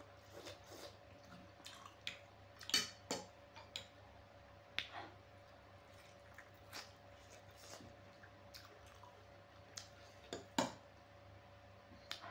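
Close-miked eating sounds from a mouthful of spicy Buldak ramen noodles and egg: wet slurps, lip smacks and chewing in scattered short bursts, loudest about three seconds in and again near eleven seconds. A faint steady hum sits underneath.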